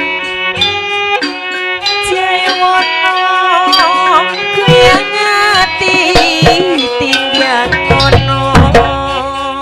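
Live East Javanese barong dance music: hand-drum strokes over sustained, ringing melodic instruments, with a wavering melody line in the middle of the passage.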